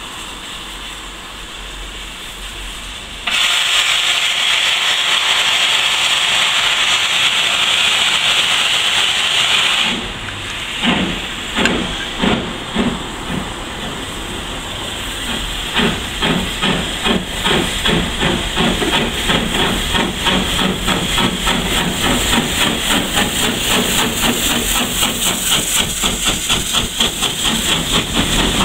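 J72 tank engine 69023 'Joem' letting off a long, loud hiss of steam that stops suddenly about ten seconds in. Its exhaust then starts beating as it gets under way, slowly at first and quickening to about four beats a second.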